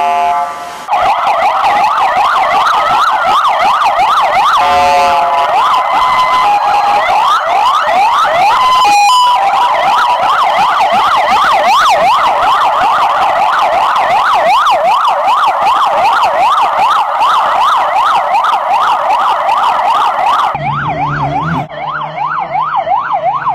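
Bulgarian police car sirens in a fast electronic yelp: rapid rising sweeps repeating over and over, with brief changes of tone where the recordings change. In the last few seconds a vehicle engine runs under the siren.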